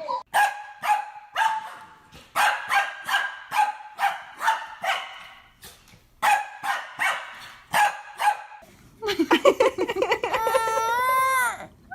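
Dog barking repeatedly, about two barks a second, in three runs. It is followed near the end by a long wavering cry that rises and falls in pitch.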